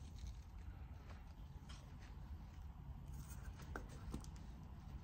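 Quiet handling sounds: faint rubbing, with a few light clicks and taps around the middle, as a wet paint-covered canvas and the small plastic cups it rests on are moved about.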